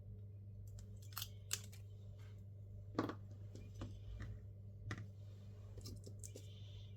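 Scattered small clicks and taps of hand tools on smartphone parts, eight or so at irregular intervals, the sharpest about three seconds in, over a steady low hum.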